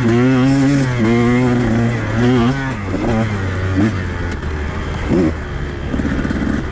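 Two-stroke enduro dirt bike engine on the throttle in short, wavering surges for the first couple of seconds, then backing off to lower, uneven running with a few brief blips of throttle.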